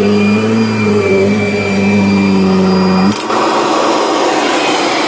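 Kirby Sentria upright vacuum running with a steady motor hum. About three seconds in, a click cuts the hum off abruptly, leaving only a rushing of air.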